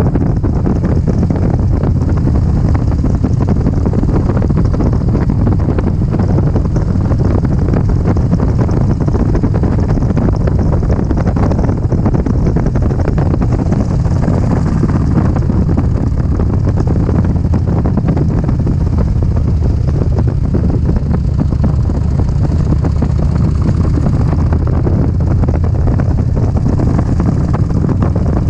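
Wind rushing over the microphone with a vehicle's engine and road noise beneath, loud and steady.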